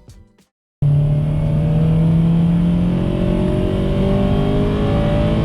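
Car engine accelerating under steady load, its pitch rising slowly and evenly; it comes in abruptly about a second in.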